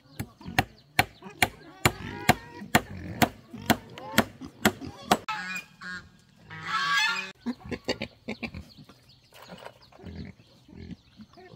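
About a dozen sharp knocks at a steady pace of roughly two a second for the first five seconds. Then a loud, harsh farm-animal call lasts about a second, around six seconds in, with smaller animal calls around it.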